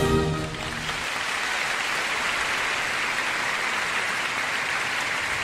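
Crowd applauding steadily, as orchestral music fades out about a second in.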